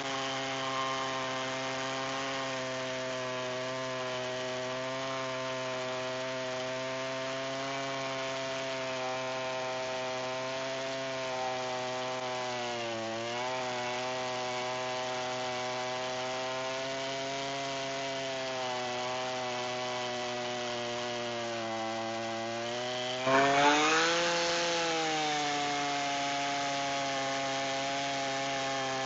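Chainsaw on a rail-guided chainsaw mill running under load as it cuts lengthwise through a sweet gum log, holding a steady engine note that sags slightly now and then. About three-quarters of the way through it gets suddenly louder, its pitch jumping up and then easing back down.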